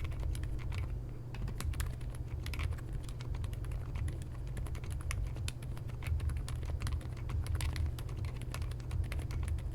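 Steady typing on an Epomaker x Feker Galaxy mechanical keyboard with unmodded Outemu Silent Peach V2 silent switches and basic keycaps, a quick, irregular run of soft key clicks, over a steady low hum.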